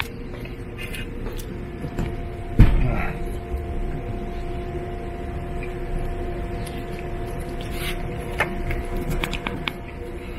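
A steady machine hum holding a few fixed tones, with one heavy thump about two and a half seconds in and a few light clicks near the end.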